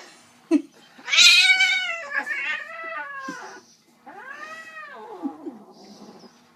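Young cat yowling in protest while restrained for a claw trim: a long, loud yowl starting about a second in, then a second, softer yowl that rises and falls. A brief sharp click comes just before the first yowl.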